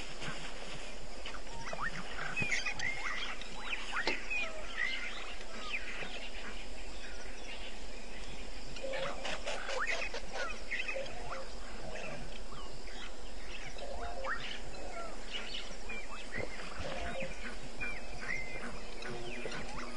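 A wild chorus of many short bird and animal calls, chirps and whistles, over a steady background hiss, with a cluster of lower calls about nine to eleven seconds in.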